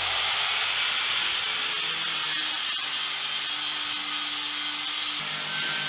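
Angle grinder with a flap disc grinding down fresh welds on a thin steel floor pan: a steady high motor whine over the rough hiss of the disc on the metal.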